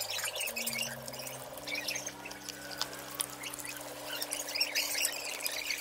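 Stiff bristle brush scrubbing the wet metal lens assembly of a Panasonic M7 VHS camcorder in soapy water, a run of irregular scratchy, splashy strokes with drips. Under it are steady low tones that shift pitch a few times in the first second and a half.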